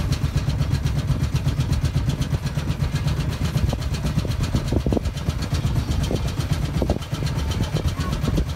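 Halcyon 23 yacht's inboard engine running steadily with an even low beat as the boat motors along under power.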